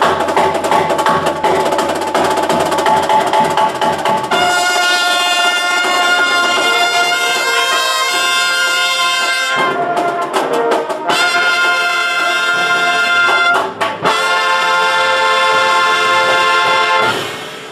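A drum and bugle corps horn line of marching brass playing loud held chords, with drums under the opening bars. The chords break twice into short clipped notes, and a final held chord is cut off near the end and rings briefly in the room.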